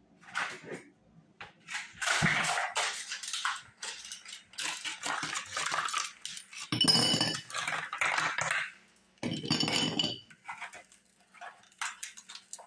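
Ice cube tray being twisted and handled, with ice cubes knocking and clattering into a glass mason jar. The rattles are irregular, and two longer, louder strained sounds come about seven and nine and a half seconds in.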